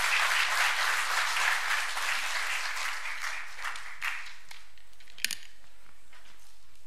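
Audience applause that fades out over about four seconds, followed by a single sharp knock about five seconds in.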